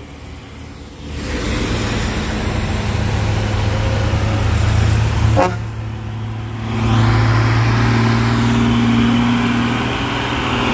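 Road traffic: heavy vehicle engines running steadily, with a short horn beep about five seconds in.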